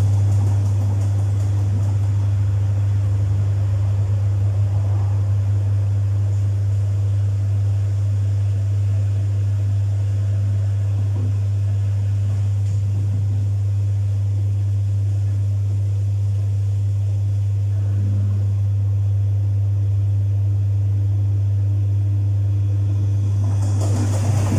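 Domus 8 kg washing machine humming steadily at one low pitch, then cutting off right at the end.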